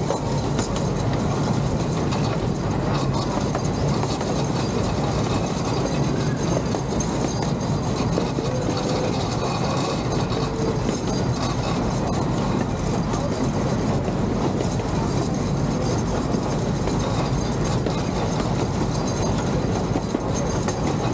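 Ride-on miniature train running along its track: a steady, continuous rumble of wheels on rail.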